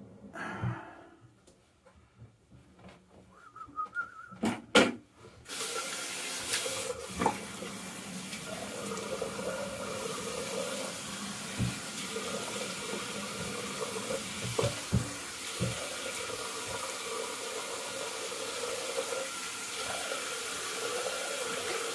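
Bathroom sink tap turned on about five seconds in, after a few knocks, then running steadily into the basin with a wavering splash.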